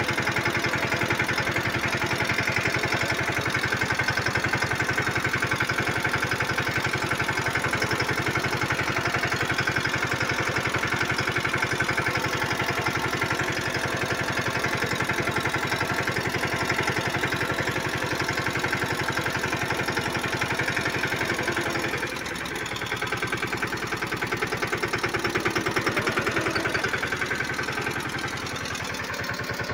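Mahindra Yuvraj mini tractor's single-cylinder diesel engine running steadily at low speed, with a fast, even firing beat. The engine note dips about three-quarters of the way in, then swells and eases again near the end.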